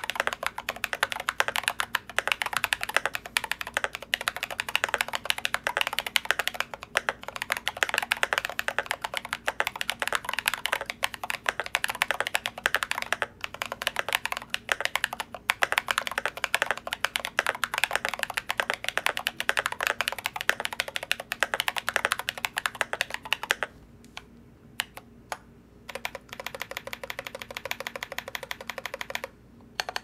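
Fast typing on a GMMK Pro mechanical keyboard with lubed and filmed Glorious Panda tactile switches in an aluminum plate: a dense run of irregular keystroke clacks. Near the end the typing stops briefly, then a short run of quieter, evenly spaced keystrokes follows.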